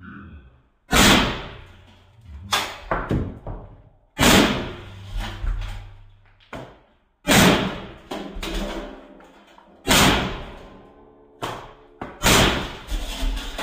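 Milsig FSC carbine on a high-pressure-air tank firing riot balls one shot at a time, about every three seconds. Each shot is a sharp bang with a ringing tail, with a few softer knocks between them.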